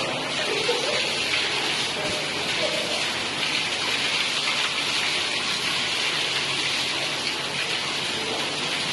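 A cave stream running along the passage: a steady rush of flowing water.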